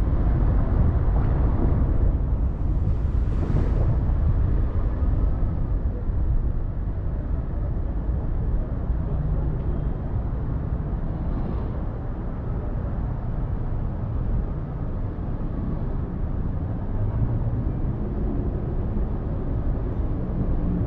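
Steady low rumble of a car driving slowly in city traffic, with road noise and some wind on the microphone; it eases a little after about six seconds as the traffic slows to a halt.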